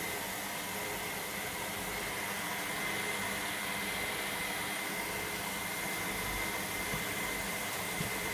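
Electra AWF683 front-loading washing machine filling with water for the prewash: a steady rush of water through the inlet, with a thin steady whine over it. Two faint clicks come near the end.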